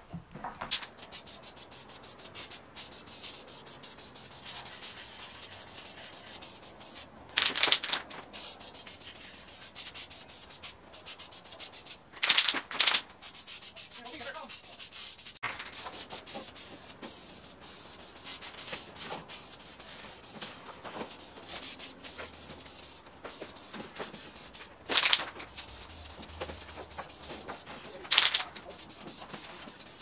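Aerosol can of VHT engine enamel hissing as paint is sprayed onto an alloy wheel, with several short, louder bursts along the way.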